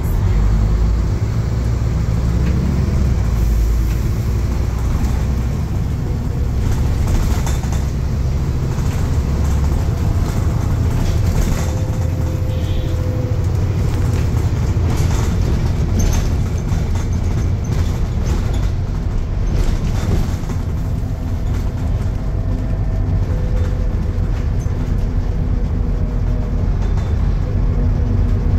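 Scania N230UD double-decker bus on the move, heard from inside the lower deck: the five-cylinder diesel engine and the road noise make a steady low rumble, with scattered rattles and clicks from the body and fittings.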